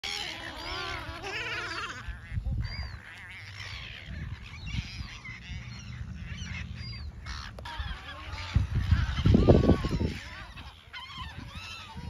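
A flock of gulls calling, many overlapping squawks and cries that are densest in the first two seconds. A low rumbling noise under the calls is loudest about nine to ten seconds in.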